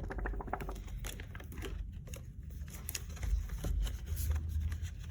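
Paper being handled: rustling with light clicks and taps, a quick run of flicks at the start, as of play-money notes being counted and binder pages turned, over a steady low hum.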